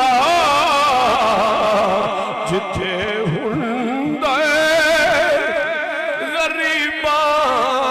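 A man's voice singing a devotional, naat-style melody into a microphone, the pitch sliding and wavering in long ornamented phrases. The singing drops back around the middle, and a new phrase begins a little after four seconds in.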